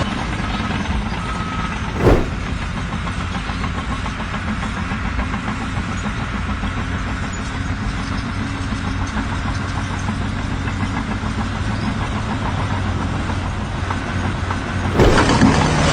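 An engine running steadily at a low, even pitch. There is a sharp knock about two seconds in, and a louder, rougher burst of noise near the end.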